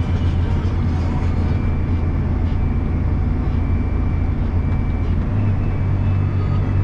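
John Deere 7250R tractor's six-cylinder diesel engine droning steadily, heard inside the cab while driving on the road, with a faint steady whine above it. The engine note steps up slightly about five seconds in.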